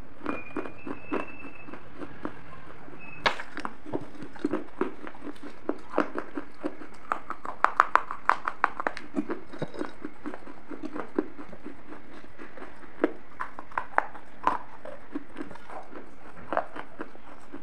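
Close-miked crunching and chewing of pieces of baked terracotta clay from a gullak pot: irregular sharp crunches, densest and loudest in a quick run around the middle.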